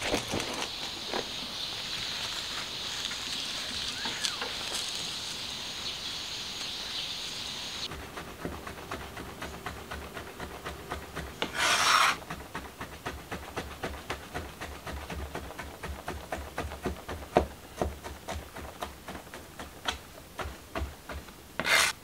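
Hands pulling apart and shredding cooked chicken on a plastic mat: a run of irregular small tearing and rubbing sounds, with two louder rustling bursts, one near the middle and one at the end. Before this, for the first several seconds, there is a steady high hiss that stops abruptly.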